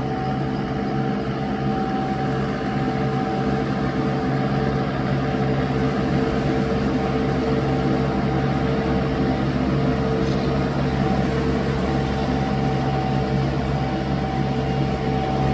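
Tractor diesel engine running at steady revs while pulling a rotary puddling harrow through flooded paddy mud, a constant drone with a steady hum.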